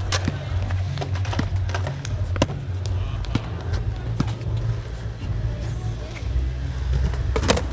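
Skateboard wheels rolling over the concrete of a pool-style skate bowl, a steady low rumble, with many sharp clacks and knocks from the boards and a louder clack near the end.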